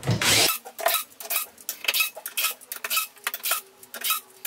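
Cordless drill with a Phillips bit driving metal cam pins into a melamine-faced board. A loud burst at the start, then a quick, irregular string of sharp metallic clicks over a faint steady hum.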